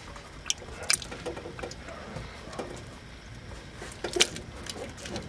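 A few sharp metallic clicks with faint rattling between them from the opened rear differential of a 1997 Ford Ranger as its ring gear is turned by hand.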